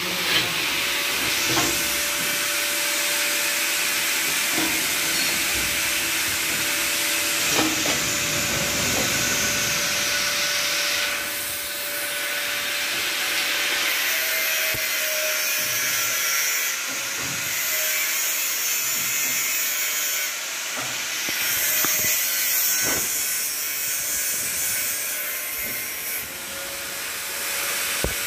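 Argon (TIG) welding equipment running: a steady hiss with a steady mid-pitched whine, and a few sharp clicks. The hiss brightens and drops back several times.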